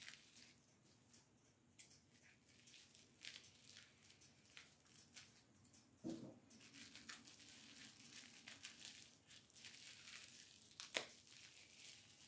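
Faint crinkling and tearing of packaging as a small pin is unwrapped, made of scattered soft crackles with a sharper click near the end.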